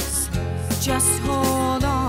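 A pop song from a band recording: a singer holds notes with vibrato over a steady bass and repeated drum and cymbal hits.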